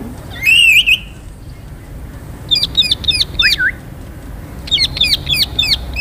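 Pet green parakeets calling: one loud, wavering call near the start, then two quick runs of about half a dozen short, shrill calls each, one in the middle and one near the end.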